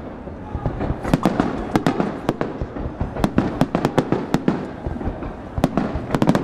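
Fireworks display: aerial shells bursting in quick, irregular succession, a dense run of sharp bangs and cracks over a steady low rumble.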